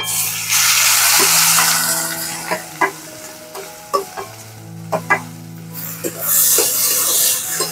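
Chopped onions dropped into hot mustard oil in a metal kadai, sizzling loudly at once and then frying more quietly. A metal spatula scrapes and taps the pan a dozen or so times, and the sizzle swells again near the end as the onions are stirred through the oil.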